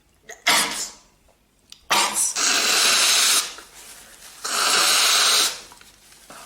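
A person in a sneezing fit: a sudden sneeze about half a second in and another near two seconds in, followed by two long, loud, noisy breaths of about a second each.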